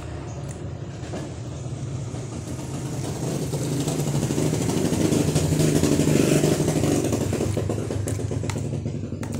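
An engine running with a steady low hum, growing louder toward the middle and then fading a little.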